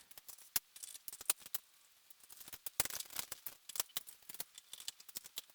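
Light, irregular clicks and taps of hard plastic and metal parts being handled as a painted U-turn lens is fitted into a traffic signal head.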